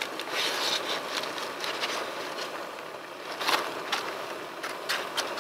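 Dry angel hair pasta and its box being handled: rustling packaging and a few light clicks and crackles of the stiff noodles, over a steady background hiss.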